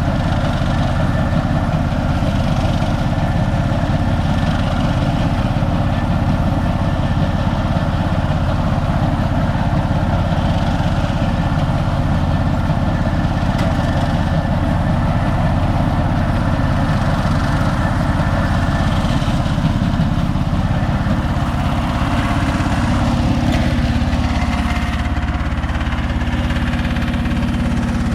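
Konma MT-S411D harvester running: its engine and threshing mechanism make a steady mechanical drone. About two-thirds of the way through, the pitch glides down and settles into a lower, steadier hum.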